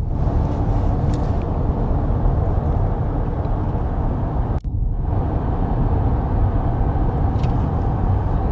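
Steady low road and engine rumble inside the cab of a moving pickup truck. It cuts out for an instant about halfway through.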